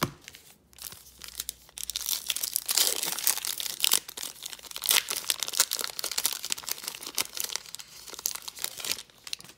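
Foil wrapper of a trading card pack being torn open and crinkled by hand: dense crackling from about two seconds in until near the end.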